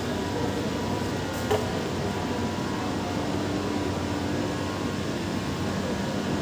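Steady hum and hiss of a metro station's ventilation and air conditioning, with a faint short click about one and a half seconds in.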